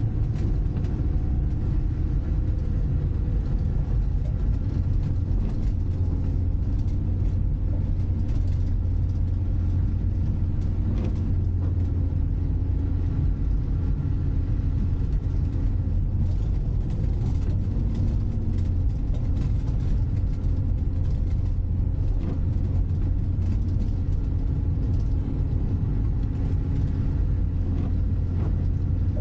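Citroën C15 D diesel van's engine running steadily under load, a low even drone heard from inside the cabin, with road noise from studded front tyres on a snowy road.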